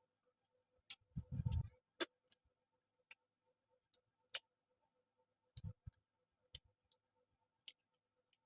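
Eating sounds at a plate: faint scattered clicks and a few soft low thumps, with a brief cluster of thumps about a second in.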